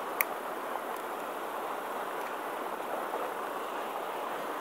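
Steady outdoor hiss with one sharp click about a fifth of a second in, from the metal fish grip and pliers being handled while a caught fish is unhooked.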